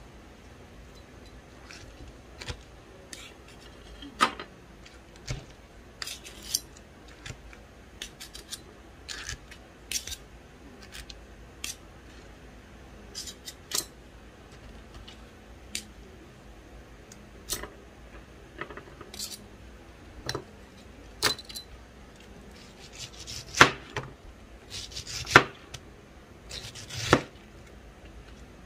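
A large kitchen knife slicing a peeled pineapple into rings on a plastic cutting board: irregular knocks of the blade meeting the board, with slices set down on a plate. The knocks come louder and closer together near the end.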